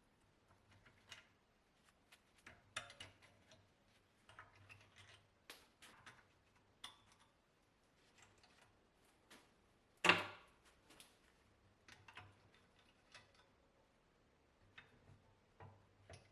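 Hand tools and metal parts being handled: scattered light clicks and clinks, with one louder knock about ten seconds in.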